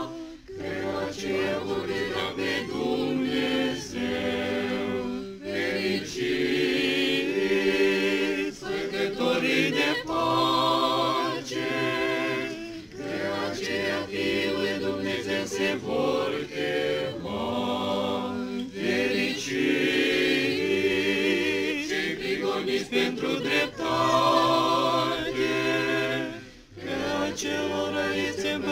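Church choir singing Orthodox liturgical chant a cappella, several voices in harmony, in sustained phrases with short breaks between them.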